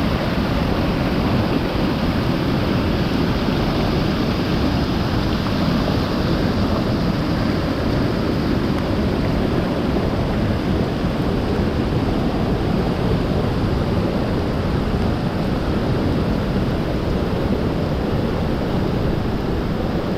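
Rushing water of a rain-swollen mountain stream in flood, loud and steady throughout.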